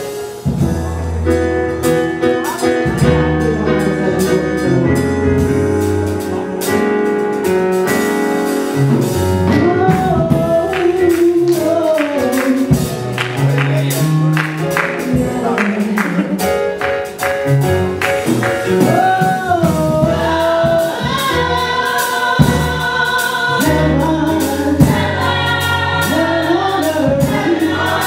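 Gospel worship music: a choir singing over a band, with a walking bass line and a steady beat of drum and cymbal strikes.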